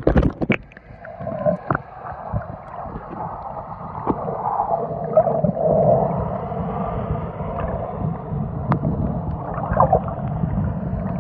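Splashing as a camera breaks the sea surface, then the muffled rumble of underwater ambience heard through the submerged camera, with bubbling and scattered clicks.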